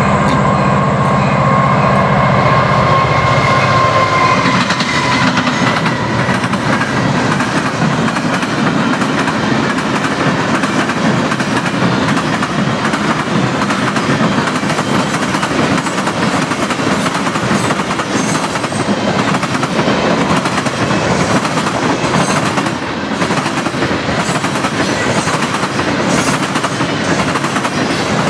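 A freight train rolls past at speed. Over the first four seconds, diesel locomotive engine hum and a high steady tone fade and dip in pitch as the locomotives move away. After that, a continuous rumble and clatter of freight-car wheels over the track and the diamond crossing carries on.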